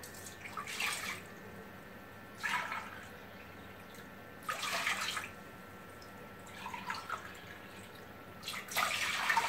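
Water poured in short runs from a glass jug into a cup and from the cup into a saucepan: five separate pours, each about half a second to a second long, a couple of seconds apart.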